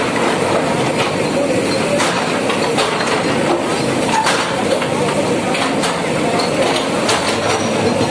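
Diesel engines of JCB backhoe loaders running steadily, with irregular knocks and clatter of concrete and brick rubble as the buckets break down a building.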